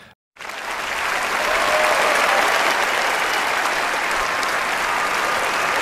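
Large audience applauding: dense, steady clapping that starts suddenly about a third of a second in and swells briefly before holding level.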